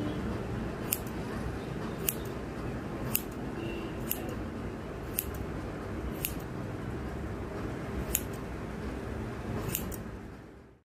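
Hair-cutting scissors snipping through wet hair, a sharp snip about once a second over a steady low background hum. The sound cuts off abruptly near the end.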